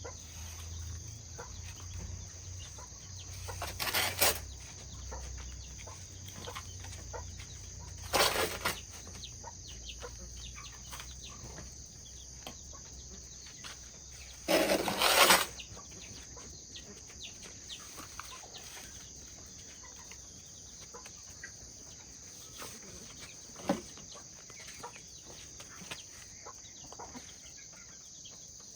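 Farmyard chickens, with three loud brief rustling bursts in the first half and a single sharp knock later, over a steady high-pitched insect drone.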